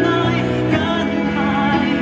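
Live pop ballad playing through the stage speakers: sustained backing chords with a singer's voice over them.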